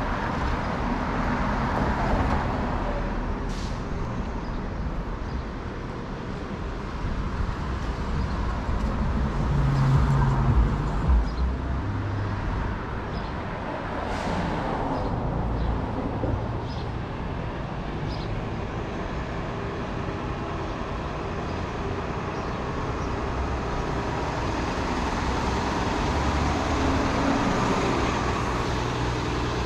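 City street traffic: cars and heavier vehicles passing steadily, with one louder vehicle going by about ten seconds in.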